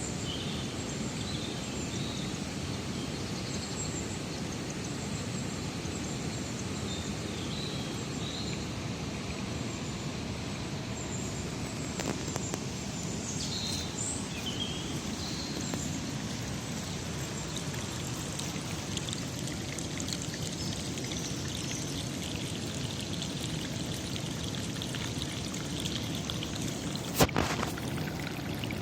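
Steady rush of flowing water with small birds chirping now and then. A single sharp click sounds near the end.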